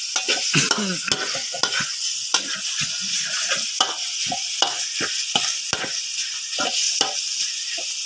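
Freshly added diced pork sizzling in hot oil in a large wok, stir-fried with a metal spatula that scrapes and knocks against the pan about once or twice a second.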